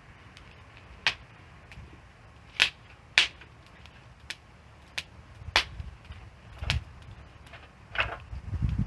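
Wood fire crackling, with sharp pops at irregular intervals and a low rumble of the flames underneath that swells near the end.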